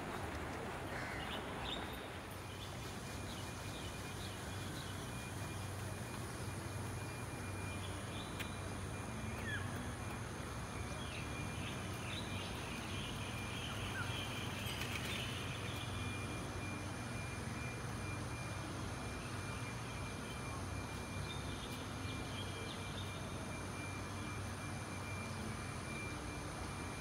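Outdoor park ambience: a steady low hum of background noise with short bird chirps now and then, most of them in the middle, over a thin steady high tone.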